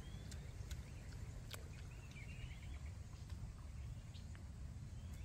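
Outdoor background: a steady low rumble with faint bird chirps, about a second in and two seconds in, and a few small clicks.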